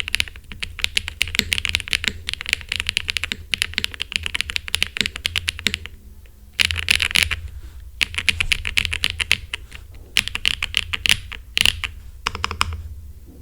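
Typing on a QK80 mechanical keyboard with Sarokeys BCP switches, GMK Handarbeit ABS keycaps and an aluminium plate: fast runs of keystroke clicks, broken by a pause of about half a second near the middle and a few shorter ones, trailing off near the end.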